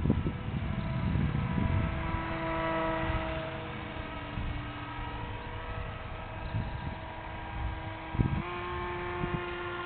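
Small electric RC plane motor and propeller whining at a steady pitch, with wind rumbling on the microphone in the first couple of seconds. About eight seconds in there is a brief bump and the whine steps up a little in pitch.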